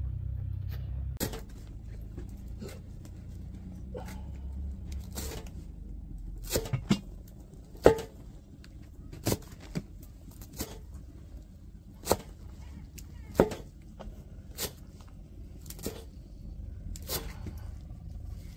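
Large kitchen knife chopping fresh cilantro and green onions on a wooden block: sharp knocks of the blade striking the wood, about one a second and unevenly spaced, with a quick run of three near the middle.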